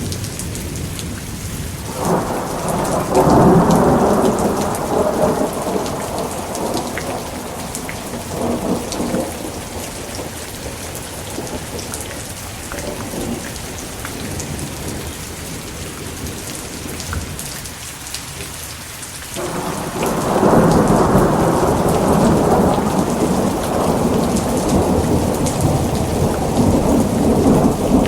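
Steady rain with rolling thunder. One rumble builds about two seconds in and dies away over several seconds; another breaks suddenly about two-thirds of the way through and keeps rolling.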